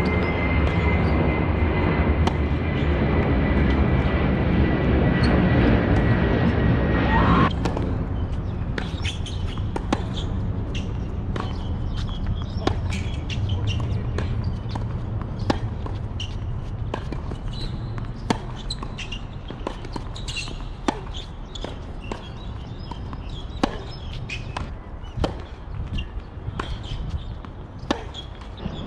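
Tennis ball bouncing on a hard court and being struck by rackets during rallies, a series of short, sharp, irregular pops. For the first several seconds a loud steady sound with a held high tone covers everything, then cuts off suddenly.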